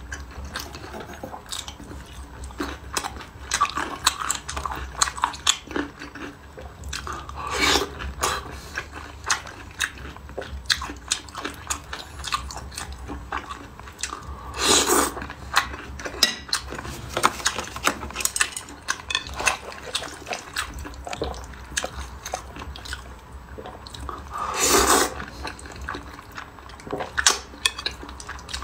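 Close-miked eating sounds: wet chewing, sucking and lip smacks from eating saucy crayfish, in quick irregular clicks, with a few louder, longer slurps, about three, spread through.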